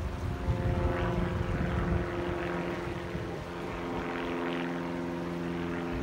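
A distant engine drones steadily at one pitch over an uneven low rumble.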